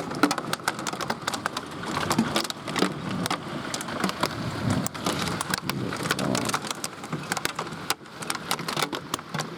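Torrential rain mixed with hail: a dense, irregular patter of sharp clicks from ice striking hard surfaces over a steady hiss of downpour.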